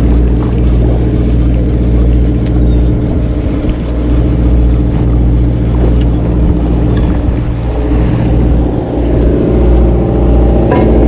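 Sportfishing boat's engine running at a steady drone, with a few faint clicks.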